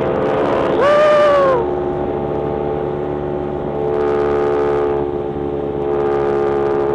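CFMoto 450SR parallel-twin motorcycle engine running at a steady cruise. A short held tone sounds about a second in and again right at the end.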